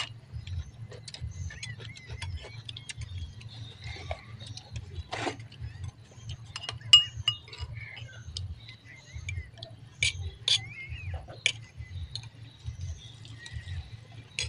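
Metal spoons clinking and scraping against ceramic soup bowls and plates during a meal, in scattered irregular taps, the sharpest about 7 seconds in.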